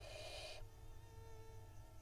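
Barn owl nestling giving a faint hissing begging call, one burst of about half a second right at the start, over a steady low hum.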